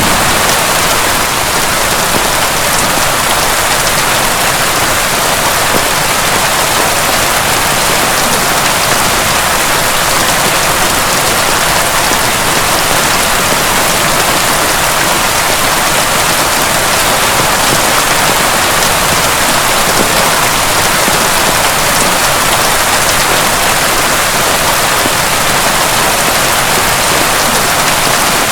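Heavy rain falling steadily, a loud even hiss of drops with no let-up. A low rumble of thunder dies away in the first second.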